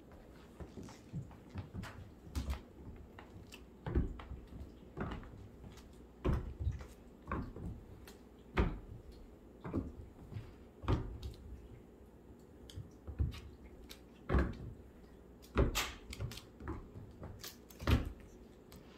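Kittens' paws thumping and skittering on a hardwood floor as they run, pounce and land: irregular knocks about once a second, a few louder thuds among them.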